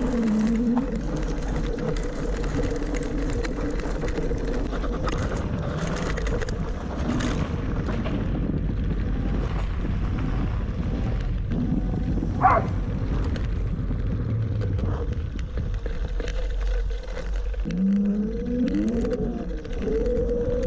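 Qiewa Qpower electric scooter's motor whining at a steady pitch over the rumble of its tyres on a dirt road, with wind on the mounted camera's microphone. The whine rises in pitch a couple of times near the end as it accelerates. There is one brief squeak about halfway through.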